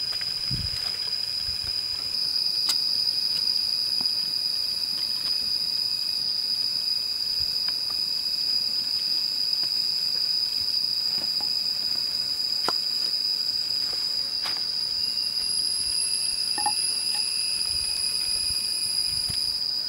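Insects droning in a steady high pitch, with a second, higher drone joining about three-quarters of the way through. Scattered light clicks and knocks sound over it.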